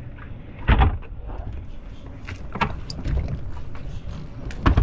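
Knocks and thumps as heavy batteries and gear are handled between an inflatable dinghy and a catamaran's stern steps, over a steady low rumble. The loudest knocks come about a second in and near the end, with lighter clicks between.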